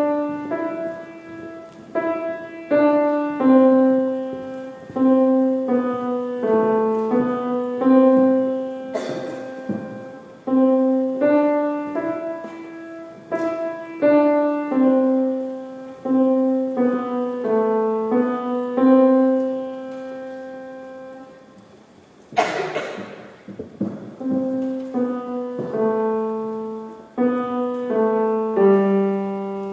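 Grand piano played by a young child: simple, slow melodic lines of separate notes in the middle register. The playing pauses briefly about 21 seconds in, with a short noise just after, then resumes.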